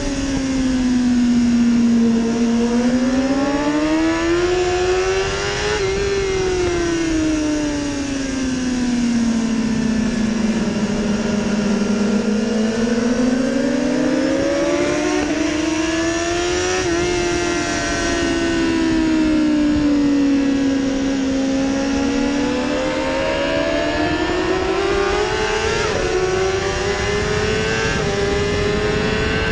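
BMW S1000RR's inline-four engine at full track pace, heard from onboard. Its note falls as the bike slows for corners and rises again under acceleration, twice over, then climbs steadily toward the end as the bike drives out onto a straight.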